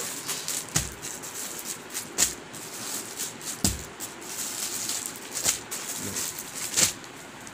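Clear plastic packets of packaged suits crinkling and rustling as they are handled and shifted, with several sharper crackles along the way.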